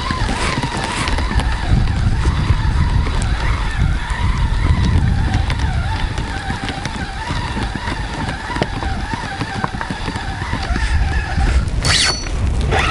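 Spinning reel being cranked on a lure retrieve, a wavering whine, over heavy wind rumble on the microphone. A short sharp sound comes near the end.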